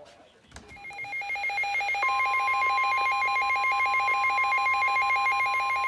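Emergency Alert System attention tones: a fast warbling, ringing alarm tone sounds about half a second in and grows loud, and a steady single tone joins it about two seconds in.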